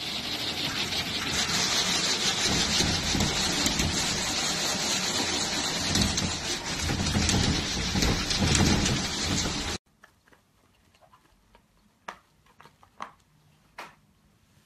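Spray of water hitting a sliding glass door, a steady loud hiss like heavy rain on the glass, which cuts off suddenly about ten seconds in. Then near quiet with a few faint taps.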